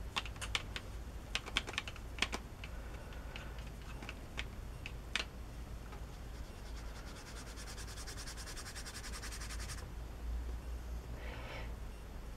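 A paintbrush at work with copper shimmer watercolor: light clicks in the first couple of seconds, then a fast, scratchy run of brush strokes across the watercolor paper that stops abruptly about ten seconds in.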